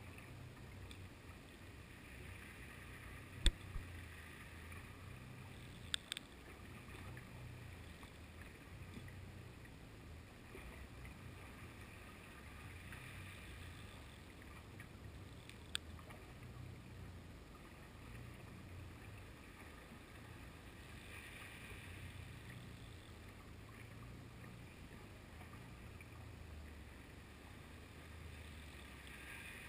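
Faint, muffled rumble of water heard by a GoPro's microphone inside its waterproof housing underwater. Three short sharp clicks stand out, about 3.5, 6 and 16 seconds in.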